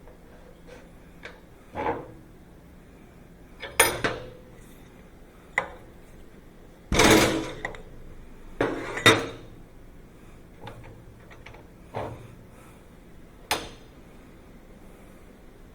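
Metal clinks and clanks of small steel parts and tools being handled and set down on a workbench: about eight separate knocks, some ringing briefly. The loudest is a longer clatter about seven seconds in.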